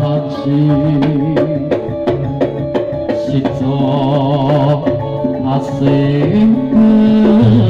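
Campursari music played live through a PA: a hand drum beats a steady rhythm under a sustained, wavering melody.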